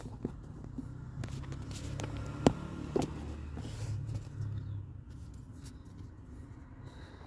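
A low rumble with a few sharp clicks and knocks of parts being handled, the loudest knock about two and a half seconds in.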